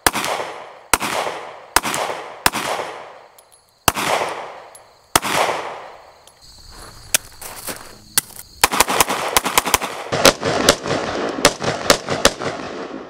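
Glock 43X 9mm pistol firing: six single shots spaced about a second apart, each echoing, then a few faint handling clicks, then a fast string of about a dozen shots near the end.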